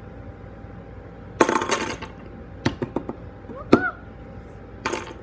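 Fidget spinner knocking and skittering on a wooden tabletop as a hand flicks it: a short scraping rattle about a second and a half in, then a few sharp clicks and taps, the loudest near the end.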